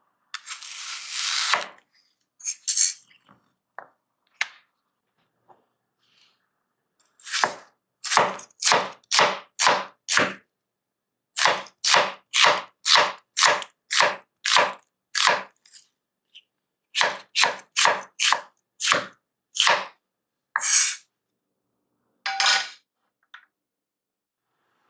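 Kitchen knife slicing an onion on a bamboo cutting board: runs of short, crisp crunching cuts, about two a second, each stroke going through the onion to the board. One longer crunch comes at the start.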